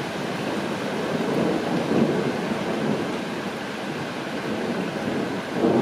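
Steady rain falling, with a low rumble of thunder swelling about two seconds in and again near the end.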